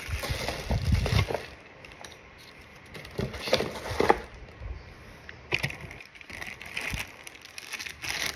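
Unpacking noises: plastic packaging rustling and crinkling, with irregular small knocks and clicks as a new spinning reel is handled.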